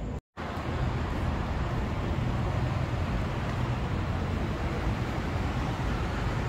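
Steady city street noise, traffic hum with a low rumble, cut out completely for a split second just after the start.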